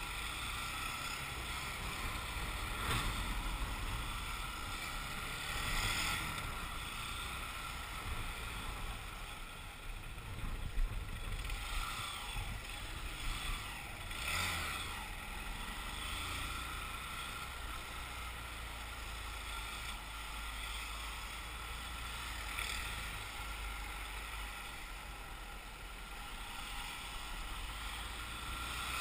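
Motorcycle riding in slow city traffic, heard from on the bike: a steady low engine rumble under wind noise on the microphone, swelling briefly a few times.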